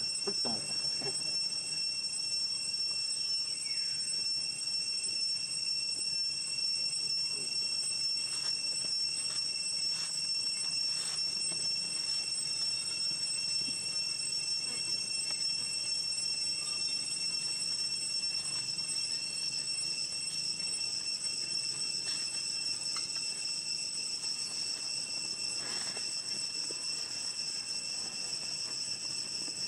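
Insects droning: a steady, unbroken high-pitched buzz on several pitches at once, with a few faint clicks and rustles.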